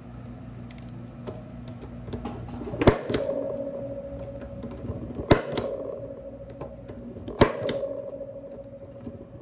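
Impact punch-down tool with a 110 blade firing three times, about two seconds apart, as it seats and trims conductors into a keystone jack's insulation-displacement slots. Each sharp snap is followed by a ringing tone that lingers until the next strike, with lighter clicks in between.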